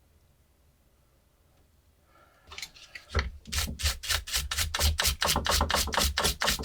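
Rapid back-and-forth abrasive rubbing strokes, about five a second, starting about two and a half seconds in, typical of hand sanding or filing a small metal part.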